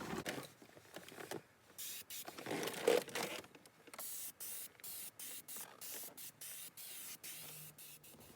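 Aerosol-propellant spray gun hissing in many short bursts with brief gaps between them as it sprays leather colourant onto a seat bolster.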